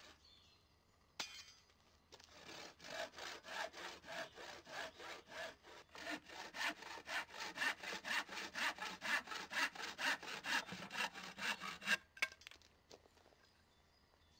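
Handsaw cutting across a thin strip of scrap wood: a knock, then about ten seconds of fast, even rasping strokes, about four a second, growing louder until the piece is cut through and the sawing stops with a knock.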